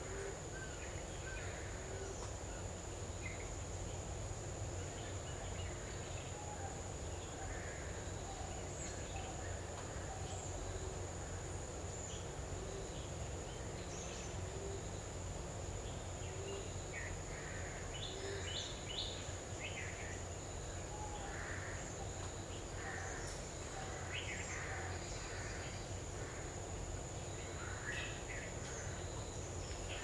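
Scattered short bird chirps and calls, busier in the second half, over a steady high-pitched insect drone and a low background rumble.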